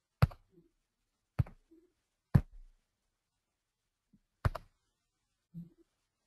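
Four sharp clicks close to a microphone, the last after a longer pause, with the audio cut to dead silence between them.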